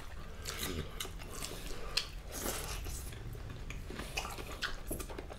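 Two people chewing and eating rice and meat with their hands at close range: chewing with many small mouth clicks, and one sharper click about two seconds in.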